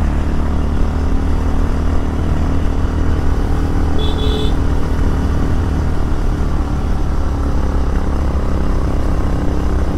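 Motorcycle engine running steadily while riding. A brief high tone sounds about four seconds in.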